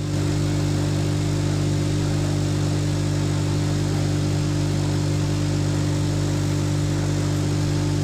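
Jeweller's blowtorch burning steadily on a coil of gold bangles: a continuous hiss of flame over a steady low hum, used to heat the chemically coated ('chatni') gold and bring out its colour.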